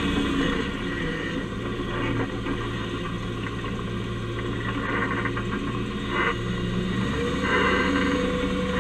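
Dodge Ramcharger's engine and drivetrain running at low speed, heard from under the truck's chassis: a steady low drone, with a higher hum joining about seven seconds in. Short bursts of higher-pitched noise come about five and six seconds in and again near the end.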